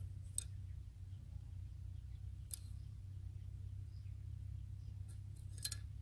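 A handful of light, sharp clicks as thin bamboo sticks are laid down and tapped against a small bamboo frame. The last few clicks come close together near the end, over a steady low hum.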